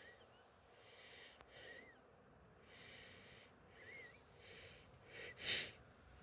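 Faint, uneven breaths about once a second, some with a small whistling catch, then a louder gasping intake of breath near the end: the build-up to a sneeze.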